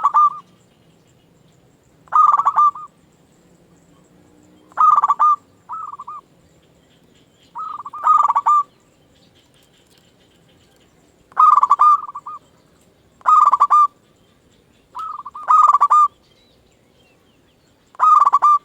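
Zebra dove (perkutut) cooing over and over: about eight short rolling coos, each under a second, two to three seconds apart, a few followed by a brief extra note.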